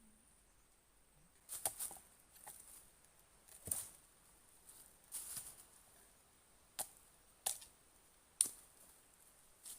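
A series of about ten sharp knocks or cracks at irregular intervals, sometimes in quick pairs, starting a second and a half in.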